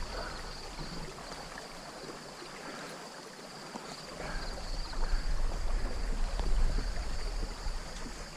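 Stream water running, with wind rumbling on the microphone that grows stronger about four seconds in.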